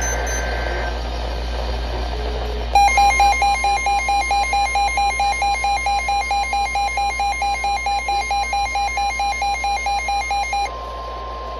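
NOAA Weather Radio emergency alert: after a few seconds of radio hiss and hum, the steady high warning-alarm tone comes on about three seconds in. A loud pulsing electronic beep sounds over it, about four or five beeps a second, and stops about a second before the steady tone ends. It signals a flash flood warning.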